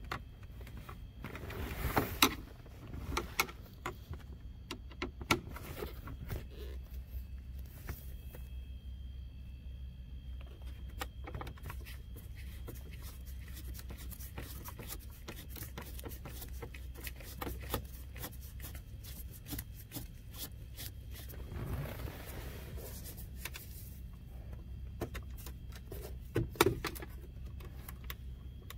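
Scattered small clicks, taps and scrapes of screws being undone and plastic interior trim being handled, two of them sharper and louder, about two seconds in and near the end, over a steady low hum.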